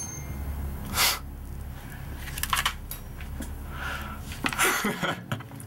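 A man's heavy, noisy breaths and sniffs, a few sharp ones spaced over several seconds, over a low steady room hum.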